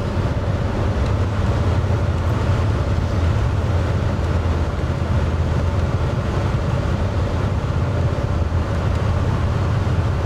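Steady road and engine noise heard from inside a moving car, a low continuous rumble with no breaks.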